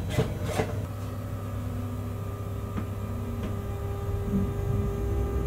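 Locomotive heard from inside its cab as it creeps along at shunting speed: a steady low hum with a few faint steady whining tones and the odd faint click.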